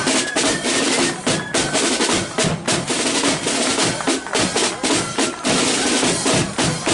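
Marching band side drums (snare drums) playing a loud, rolling street beat, with bass drum strokes underneath.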